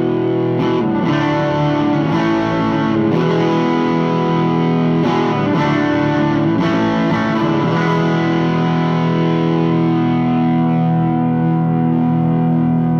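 Electric guitar played through the Thickener overdrive pedal into an Orange Super Crush 100 amp with the amp's reverb on, the overdrive gain set a little lower: long, sustained distorted chords with a few slides between them.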